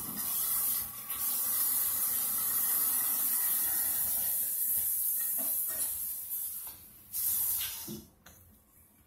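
A steady high hiss that dies away about six and a half seconds in, then comes back briefly about seven seconds in.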